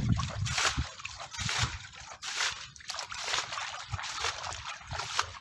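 Shallow water sloshing and splashing in irregular bursts as people work it by hand, hauling a net and scooping and bailing the water.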